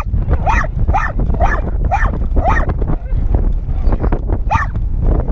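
A dog giving short, high barks that drop in pitch, about two a second, five in a row and then one more near the end, over a steady low rumble.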